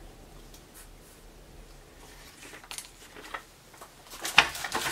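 Handling a hard plastic action figure and its packaging. There are faint light knocks at first, then a sharp plastic click near the end as the toy is set down, followed by a burst of crinkling packaging.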